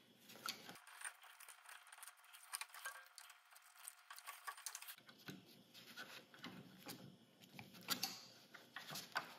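Faint, irregular clicking and scraping as pliers grip and bend solid wires flat, with the wires rattling against the electrical box.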